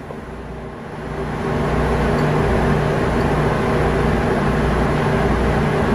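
Ship's engine-room machinery running with a steady drone, which gets louder about a second in and then holds.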